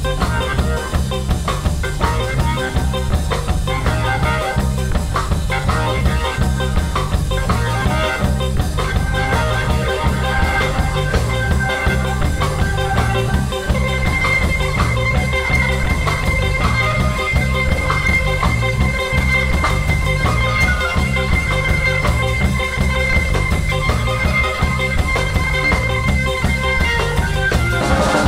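Live band playing a reggae and tsifteteli groove: a repeating bass line and drum kit under a Nord Electro 3 keyboard. A high held note sounds from about halfway through until near the end.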